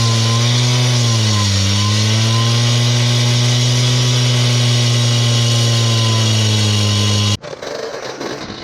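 Gas-powered cut-off saw (brick saw) running at a steady high speed, its pitch dipping briefly about a second and a half in as if loaded in a cut, then stopping abruptly near the end.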